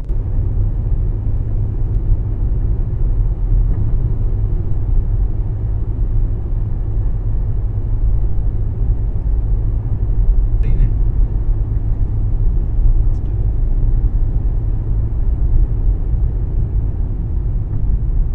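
A car driving: steady low rumble of engine and road noise, with a brief faint higher sound about ten seconds in.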